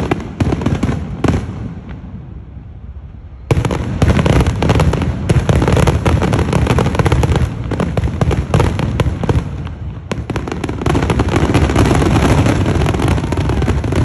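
Aerial firework shells bursting: a few separate bangs, then from about three and a half seconds in a dense, rapid barrage of bangs and crackling.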